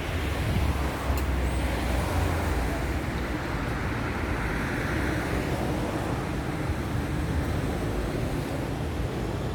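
City street traffic: a steady rumble of passing cars and engines, heaviest in the first few seconds, with a swell of passing-vehicle noise around the middle and a single sharp click about a second in.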